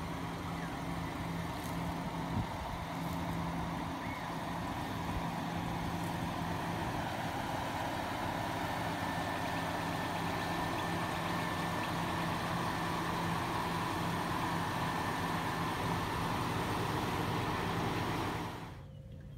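Subaru Forester's flat-four engine running steadily at low revs as the car creeps across the lawn, dropping away sharply near the end.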